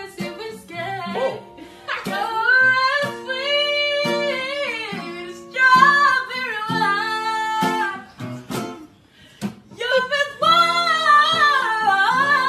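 A woman singing a slow melody, unaccompanied by other voices, over plucked guitar notes. She breaks off briefly about two-thirds of the way through, then resumes.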